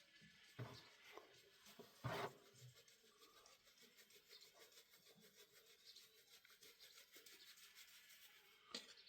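Near silence with faint rubbing and a few soft knocks, the loudest about two seconds in.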